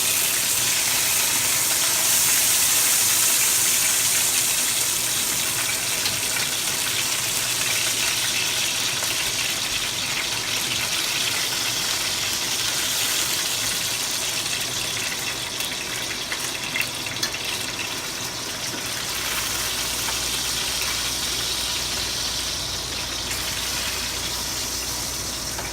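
Chicken pieces sizzling in hot olive oil in a frying pan, a steady loud hiss with a couple of faint clicks about two-thirds through.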